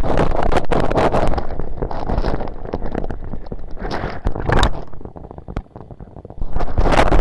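Muffled rumbling and splashing of water over a Sony Xperia Z smartphone's microphone as the phone is held in water, with crackles and knocks. It drops quieter about five and a half seconds in, then comes back loud near the end.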